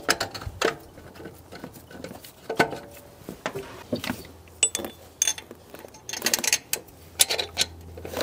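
Irregular light metallic clicks and clinks of a new alternator being seated in its mounting bracket and its mounting bolt being fed in by hand.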